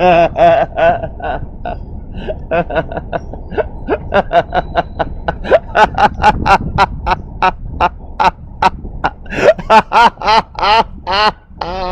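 A person's voice making a long run of short, loud, pitched vocal sounds, about three to four a second, with no words, over a steady low rumble.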